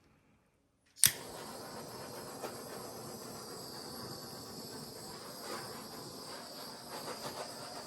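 Handheld torch flame hissing steadily over wet acrylic paint, starting with a sharp click about a second in.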